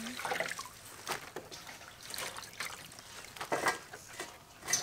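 Fresh red chillies being washed by hand in a steel basin of water: light splashing and dripping, with a few short knocks now and then.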